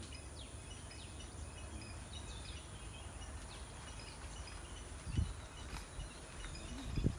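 Outdoor ambience of a forest edge: faint, scattered bird chirps over a steady low rumble, with a few low thuds about five seconds in and near the end.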